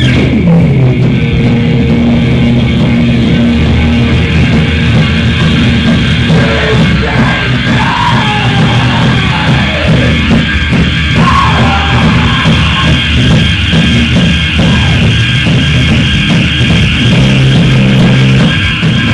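Live noise-rock band playing loud: a drum kit hit fast with cymbals under a dense wall of distorted electronic noise from a laptop and effects rig.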